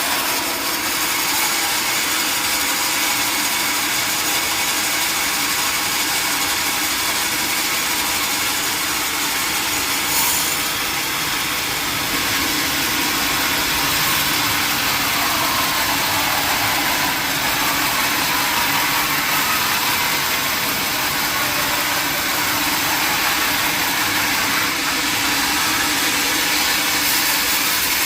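Sawmill machinery running steadily with an even mechanical drone.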